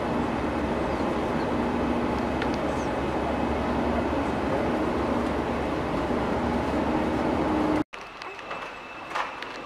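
Steady roar of airliner cabin noise, engine and air rumble heard from a window seat inside the plane. It cuts off abruptly near the end to the quieter hum of an airport terminal with a few sharp clicks.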